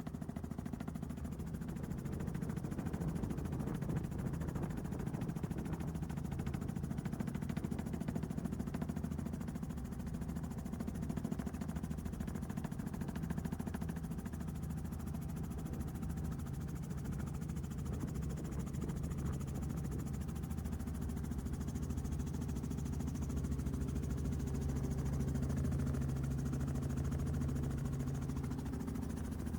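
Helicopter engine and rotor noise: a steady low drone with a constant hum.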